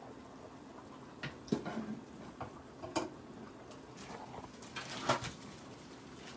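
Wire fry basket of an electric deep fryer being handled: a few light metallic clinks and knocks, the loudest about five seconds in.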